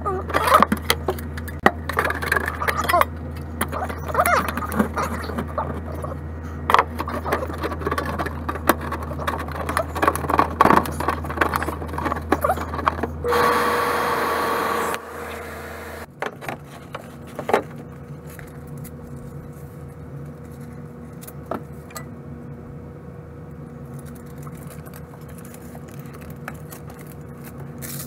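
Galvanized sheet-metal duct pieces clattering, clicking and scraping against each other and the round vent collar as they are pushed together. There is a steady rasping noise for about two seconds around the middle, then only a few light clicks.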